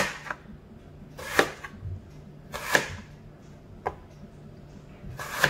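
Kitchen knife slicing a red apple into thin rounds on a plastic cutting board: each stroke is a short swish through the fruit ending in a sharp click on the board, four strokes about a second and a half apart.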